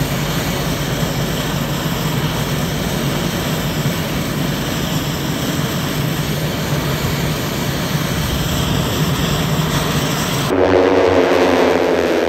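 Epic single-engine turboprop running on the ground, a loud steady engine rush. About ten and a half seconds in it cuts abruptly to a different, louder sound whose pitch falls.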